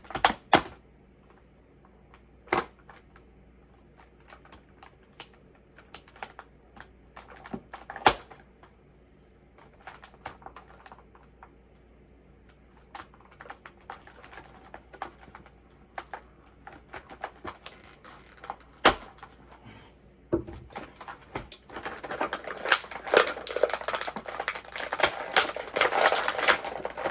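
Rubber bands being cut and an action figure's plastic packaging handled: scattered sharp clicks and snips, then a denser stretch of rustling and clattering of plastic near the end.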